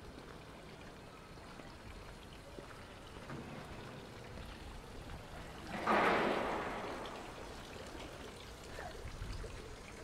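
Quiet winter city street ambience with a faint low rumble. About six seconds in comes a sudden hiss or splash of noise that fades away over a second or so.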